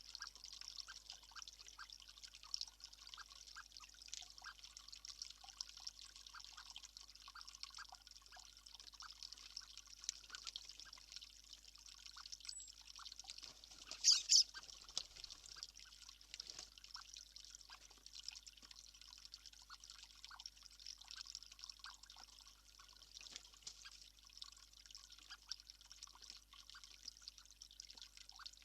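Water trickling steadily, with many small drips, and one short louder sound about fourteen seconds in.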